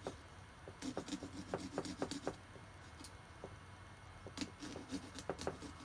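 Small hand pumpkin-carving saw cutting through a pumpkin's rind and flesh in short up-and-down strokes, a run of quick scraping rasps, then a pause, then a second run.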